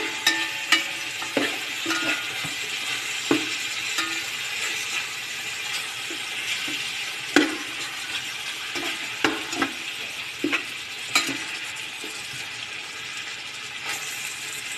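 Pork pieces sizzling as they sauté in a metal pot, stirred with a metal spoon that knocks and scrapes against the pot at irregular moments.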